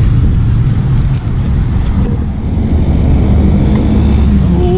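Road traffic passing close by: a steady rumble of cars and motorcycles. Near the end a motorcycle's engine tone comes in.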